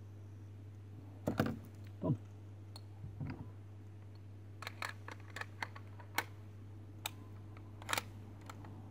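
Scattered clicks and light knocks as the metal parts of a WE Desert Eagle airsoft gas pistol are handled and fitted together, over a steady low electrical hum.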